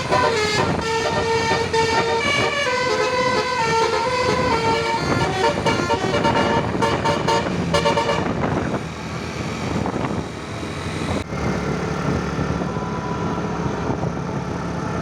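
Basuri 'telolet' musical bus horn playing a run of stepped notes, stopping about eight seconds in. After that, a vehicle engine runs on amid traffic noise.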